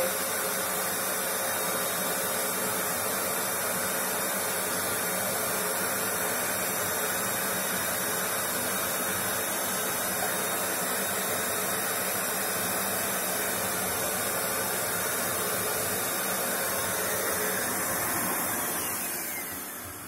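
JK-8 1000 W handheld vacuum cleaner running steadily while its brush nozzle sucks up paper scraps. Near the end it is switched off and the motor winds down with a falling whine.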